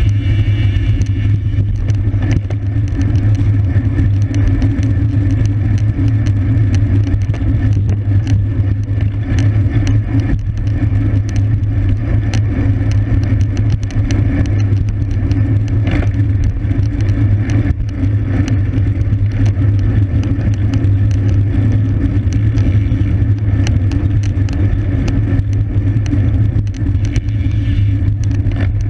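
Steady wind and road rumble on a camera riding with a bicycle at racing speed, with many small clicks and rattles from the bike and road surface.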